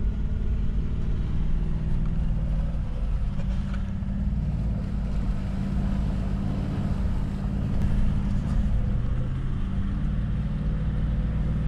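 Toyota LandCruiser engine and drivetrain running steadily, heard from inside the cabin while driving on a dirt bush track, with a few faint rattles.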